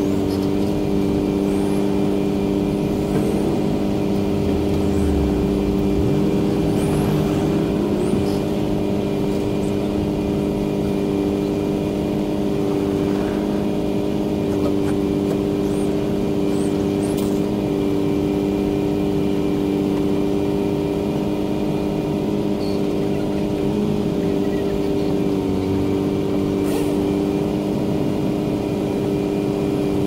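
Bucket truck's engine running steadily at a constant speed, a continuous hum, while its aerial lift boom is in use.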